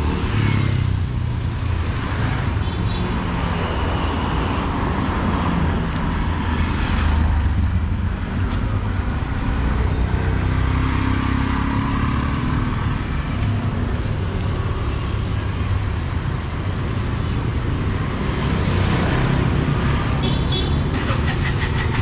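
Busy street traffic: vehicle engines running and passing in a steady low rumble and hiss.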